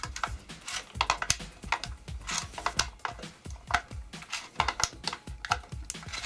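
Irregular sharp clicks and taps of hard objects being handled, about two a second, over background music.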